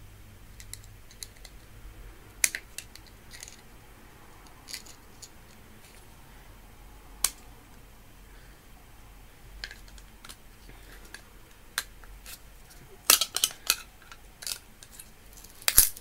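Scattered sharp clicks and snaps of a small hand tool prying at the plastic and metal parts of a photocell light sensor being taken apart, with a quick run of clicks near the end.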